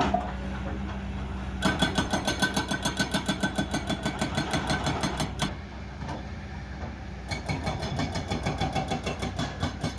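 Excavator-mounted hydraulic rock breaker hammering on hard rock in rapid, even strikes of about eight a second, over the diesel engine's steady hum. It hammers in two bursts with a pause of about two seconds between them.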